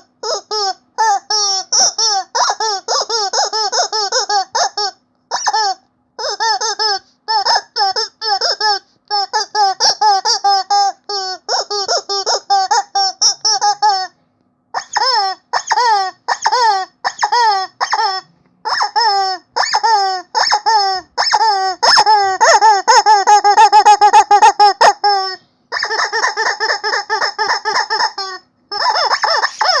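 Rubber chicken squeaky toy squeezed over and over, giving rapid runs of short high squeaks that each rise and fall in pitch, with a couple of brief pauses. The squeaks run together into longer, louder squeals toward the latter part.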